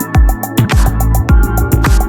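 Electronic background music with a steady beat of deep kick drums and quick hi-hat ticks.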